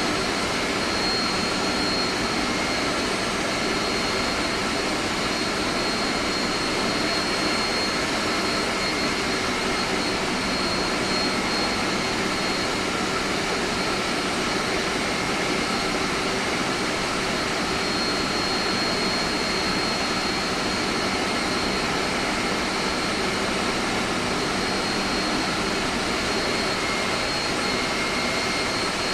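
Air-conditioning plant machinery running steadily: a constant rush of noise with a thin high whine over it.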